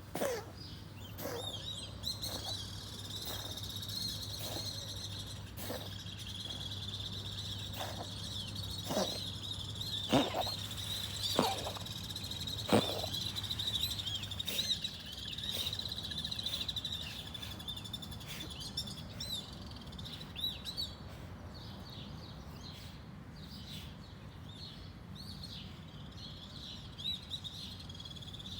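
Birds chirping and twittering without a break, with a few sharp, louder sounds about ten to thirteen seconds in and a low hum that stops about halfway.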